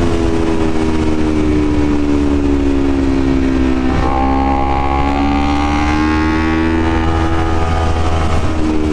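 Honda CBR250RR parallel-twin engine with an open air filter, running under way. Its note sags slowly, dips sharply about four seconds in at a gear change, then climbs gradually.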